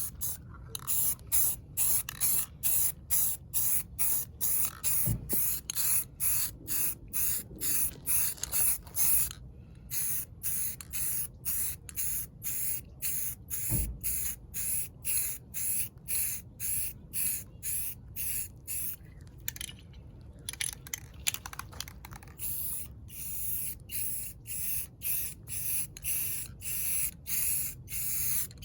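Aerosol can of Rust-Oleum gloss black spray paint hissing in short, quick bursts, about two a second, with a couple of brief pauses, as a coat of paint goes on. Two faint low thumps come in between.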